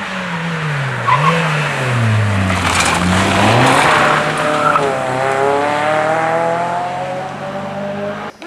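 Rally car engine at speed, its note dropping with two short upward blips as it brakes into a bend, with a burst of tyre and gravel noise as it slides through. It then accelerates away with the note climbing steadily, and the sound cuts off abruptly near the end.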